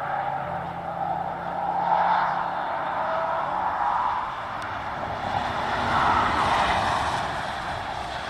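Tyre and road noise of a Kia EV9 electric SUV prototype passing at speed, with no engine sound, swelling twice.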